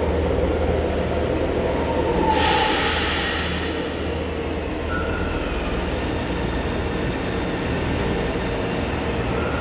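São Paulo Metro trains rumbling steadily in an underground station, with a loud hiss from about two seconds in that lasts a second and a half. Short squeals come around the middle and again near the end.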